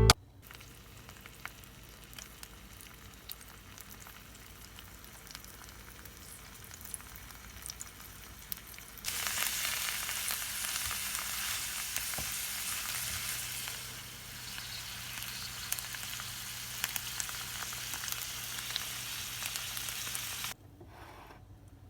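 Food frying in a pan: faint crackling at first, then a louder, even sizzle that starts suddenly about nine seconds in and cuts off sharply near the end.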